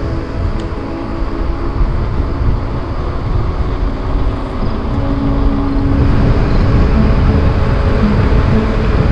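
Wind rushing over the microphone of a camera riding along on a bicycle: a loud, steady rumble that grows louder in the second half.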